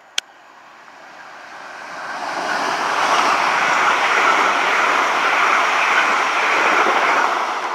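A South West Trains Class 450 Desiro electric multiple unit passes the platform. Its wheel and rail rumble and air rush build up, stay loud for several seconds as the carriages go by, then begin to fade near the end. A single sharp click sounds just after the start.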